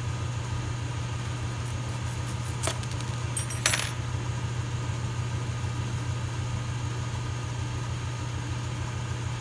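Vacuum pump on a neon processing manifold running with a steady low hum, joined by a few light clinks of glass and metal about three seconds in as a piece of 5mm glass tubing is changed out.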